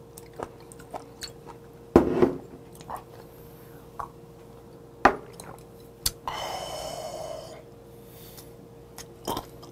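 Close-up eating and drinking sounds: sharp knocks and clinks of a glass soju bottle and shot glass, the loudest about two and five seconds in, and a breathy exhale lasting just over a second after the shot. Soft chewing runs in between.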